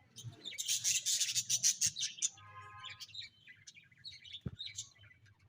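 Budgerigars chirping and chattering, a dense flurry in the first two seconds, then one longer call and scattered chirps. A soft low thump about four and a half seconds in.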